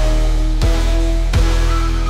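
Loud soundtrack music in a heavy, dense passage with deep bass and two drum hits under sustained tones.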